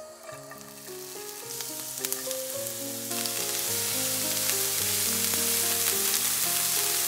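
Diced onion sizzling in hot sunflower oil in a nonstick frying pan, stirred with a spatula, with a few sharp clicks as it is moved. The sizzle grows louder over the first few seconds as the onion heats.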